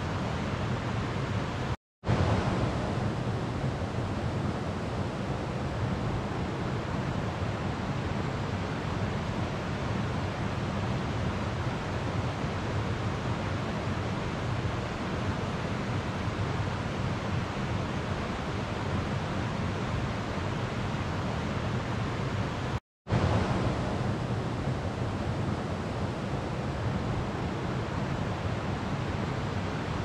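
Slow river water flowing, a steady rushing noise. Twice, about two seconds in and again near the three-quarter mark, it cuts out for a split second and comes back slightly louder and brighter.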